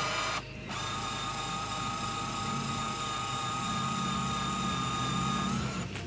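Electric corner-jack motors of a Lance truck camper running with a steady whine as the camper is lowered on its jacks. The whine cuts out briefly about half a second in and again near the end.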